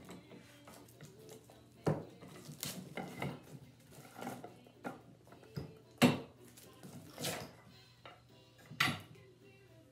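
Metal bar clamps being loosened and taken off a glued-up hardwood panel, with clanks of the clamp bars and knocks of wood pieces on the workbench; the sharpest knocks come about 2, 6 and 9 seconds in.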